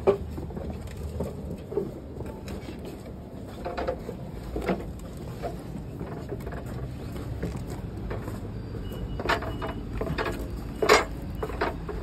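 Footsteps and scattered knocks and clatter of people walking out of a stopped train and stepping down onto the track, over a low rumble, with one loud knock about a second before the end.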